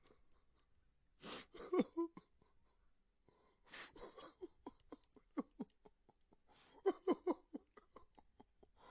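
A man crying: two sharp gasping inhales, each followed by short, choppy sobs, with a longer run of quick stuttering sobs in the middle.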